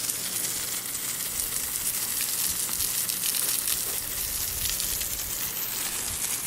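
Garden hose spraying a steady hissing stream of water onto a horse to cool it down.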